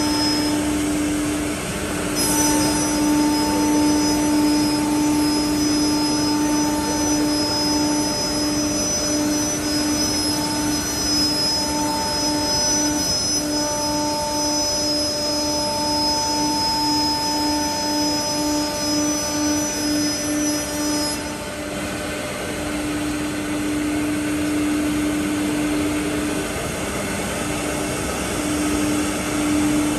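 A single-head CNC wood router running with a steady spindle tone. The tone pulses evenly through the middle. A thin high whine, most likely from the servo axis drives, plays alongside it from about two seconds in and stops about two-thirds of the way through.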